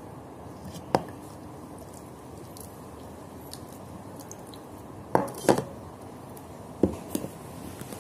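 A few sharp knocks and clinks as an enamel basin and a sauce bottle are handled on a countertop: one about a second in, a quick cluster around five seconds, and two more near the end. Under them is a steady low background hiss.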